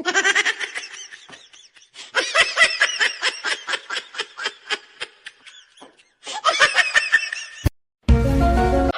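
Laughter in quick repeated pitched bursts, several to the second. About eight seconds in, it cuts to a loud, steady droning sound.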